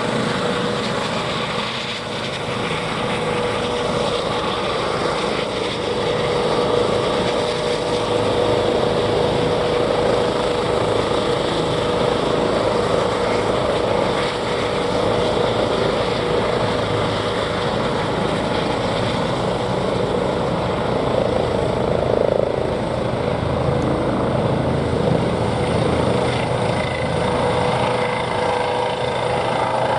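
Airbus H135 (Eurocopter EC135) helicopter's twin turboshaft engines running steadily, with a continuous whine over a dense rush of rotor and engine noise.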